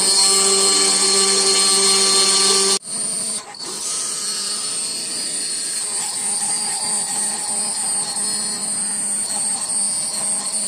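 Small electric power tool running steadily at a constant high speed, a whine over a hiss, cut off abruptly about three seconds in. A quieter steady machine noise follows.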